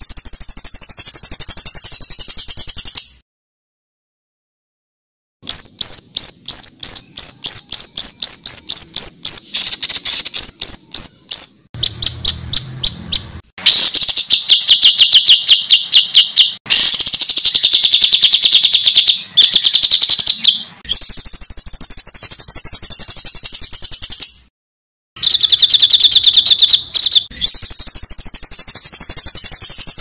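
Edited compilation of loud songbird calls of the harsh, rapid-fire 'tembakan kasar' kind: runs of quick repeated sharp notes, several a second, alternating with high buzzy trilled phrases. The clips are cut together abruptly, dropping to dead silence for about two seconds near the start and briefly again later.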